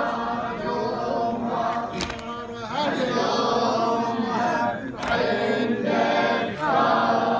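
A group of men chanting a latmiya lament in unison, voices rising and falling together in the refrain. Two sharp slaps about three seconds apart cut through the chant, fitting the mourners' rhythmic chest-beating.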